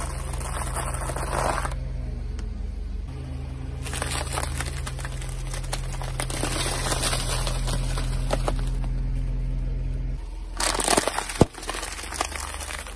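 Things being crushed under a car's tyre: three spells of crackling and crumpling, the last ending in one sharp loud pop, over a low steady hum.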